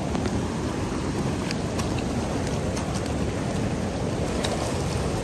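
Steady low rushing noise, with a few faint ticks scattered through it.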